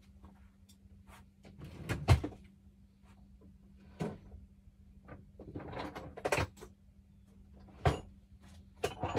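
Knocks and scraping from hands-on work, tools and parts being handled: about five separate knocks, the loudest about two seconds in, with scraping and rustling between them.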